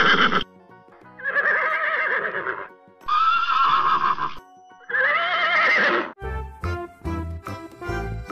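A horse neighing: the end of one whinny, then three more long whinnies of about a second and a half each with short pauses between. About six seconds in, upbeat music with a steady beat comes in.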